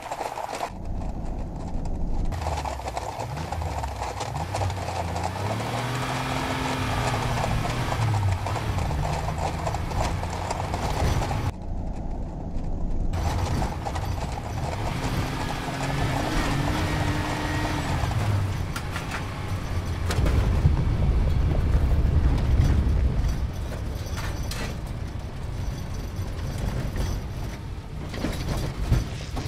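Many hooves galloping on pavement as a herd of deer runs, with a car engine revving over it, its pitch rising and falling several times. The engine and hoofbeats are loudest about twenty seconds in.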